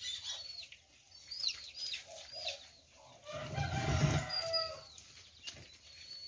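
Domestic chickens: chicks peeping with short high falling chirps, then a rooster crowing for about a second and a half, starting about three and a half seconds in.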